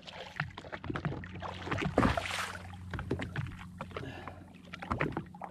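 Irregular knocks, clicks and rustling as a small shark is handled and unhooked on a jet ski, with a louder rush about two seconds in. A steady low hum runs underneath.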